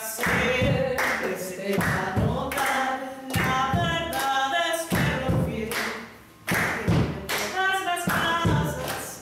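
A woman singing unaccompanied while a small group claps a steady beat along with her. The song breaks off briefly about six seconds in.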